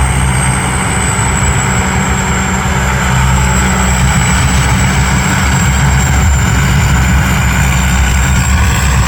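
Combine harvester engine running steadily under load, deep and heavy, with a thin high whine over it.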